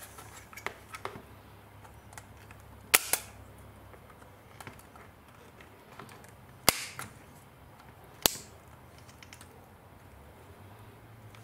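Plastic casing clips of a Canon PowerShot G12 compact camera clicking and snapping as the rear casing is pried with a plastic pry tool. A few light clicks come first, then loud sharp snaps about three seconds in (two close together), near seven seconds and near eight seconds.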